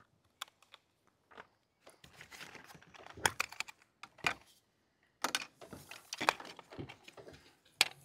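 Scattered small clicks and taps of hard plastic: a robot dog toy's battery cover and a small screwdriver being handled and set down on a wooden table, and the battery being fitted into the dog's plastic compartment.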